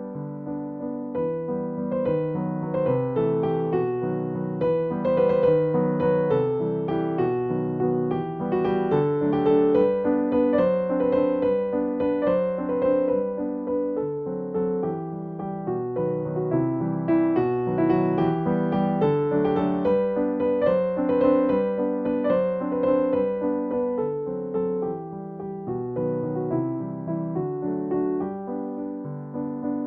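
Background music: a gentle, flowing electric piano melody with chords.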